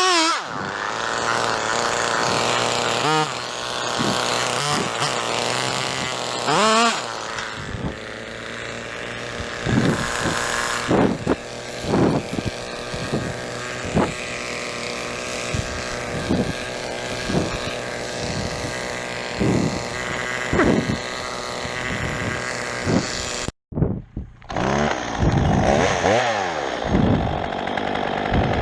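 Two-stroke chainsaw running and cutting into a pine trunk, the engine revving up and easing off again and again. The sound drops out abruptly near the end, then the saw is running again.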